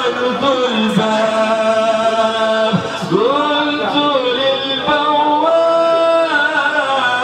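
A man's voice singing a slow, ornamented devotional chant, holding long notes and gliding between pitches.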